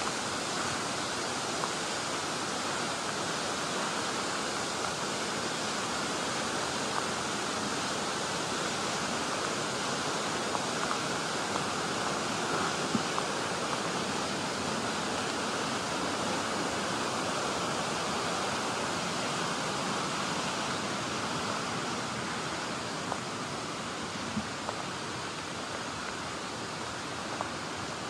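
Steady rushing of a waterfall, an even wash of water noise, a little quieter over the last few seconds, with a few faint clicks.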